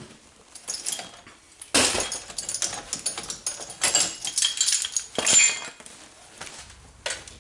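Metal tools and hub parts clinking and scraping against each other in irregular bursts, busiest in the middle.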